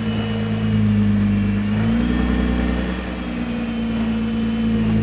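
Nissan R35 GT-R's twin-turbo V6 running at low speed while the car creeps along on right steering lock. The note steps up slightly about two seconds in. No clicking comes from the left-front suspension: the hub ring's rust has just been cleaned off.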